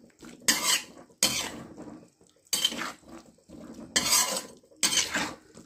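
A metal spatula scraping around an iron kadai as thick chicken and tomato masala is stirred, in five separate strokes roughly a second apart.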